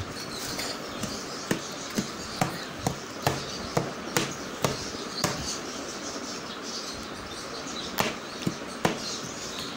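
Metal spoon pressing and knocking against a steel bowl while boiled onions and garlic are mashed: sharp clinks about twice a second, pausing for a couple of seconds past the middle.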